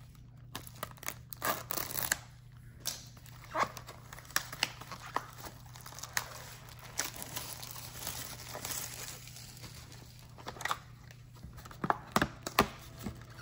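Plastic shrink wrap being torn off a cardboard trading-card box and crinkled by hand, crackling with many sharp clicks. Near the end come a few louder snaps as the cardboard box is opened.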